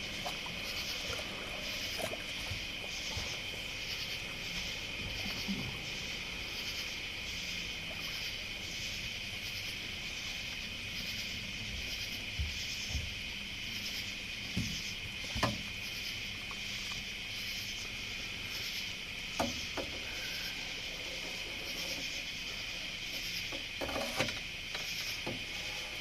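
Steady chorus of night insects: a continuous high trill with a pulsing, rasping layer above it. A few brief sharp knocks come around the middle and near the end.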